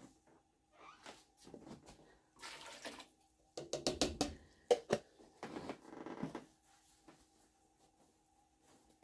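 Thawed apple juice concentrate being poured from a container onto diced apples in a metal pot, with a cluster of knocks and clatter of the container against the pot in the middle, then quieter.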